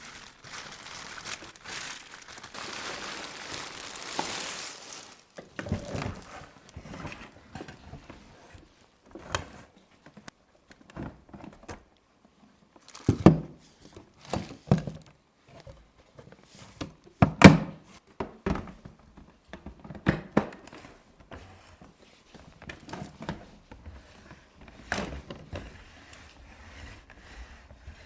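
Packaging being handled while a vacuum cleaner is unboxed: crinkling and rustling for the first few seconds, then scattered knocks and thumps as pieces are lifted out and set down, the loudest about two-thirds of the way in.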